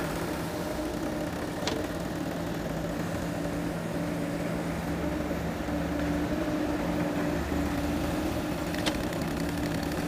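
Diesel engines of a JCB 3DX backhoe loader and farm tractors running steadily on a dig site. Two brief knocks, one early and one near the end.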